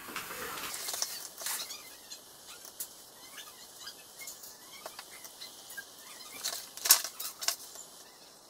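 Small handling noises at a computer desk: paper rustling as a printed booklet is put down, then scattered light clicks and taps from the mouse and desk, with a louder cluster about seven seconds in.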